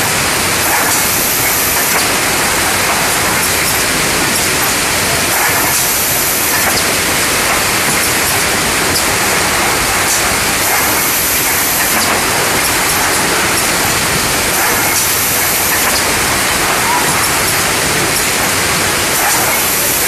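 Wrap-around case packer running on a packaging line: a loud, steady machine noise with a brighter hiss that comes back about every four to five seconds as the cycles repeat.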